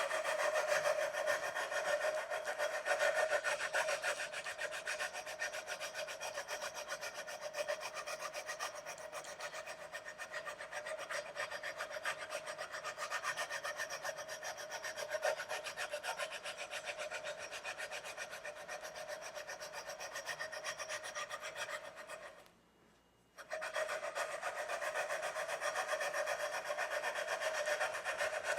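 Sandpaper rubbed rapidly back and forth along the metal frets of a guitar neck, a steady scraping, to level uneven frets. It stops for about a second near the end, then resumes.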